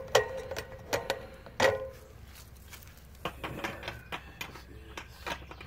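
Hand tools being handled: two sharp metal clinks, each with a short ringing tone, then a run of lighter clicks and taps, as a screwdriver is picked out to open the water heater's cover.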